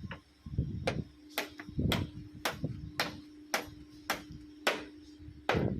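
Repeated hammer blows, about two a second, with a steady low hum underneath.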